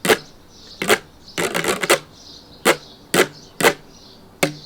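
A stick scraped along the ridges of a grooved bottle used as a homemade scraper: a series of short rasping strokes, with one longer rasp about a second and a half in.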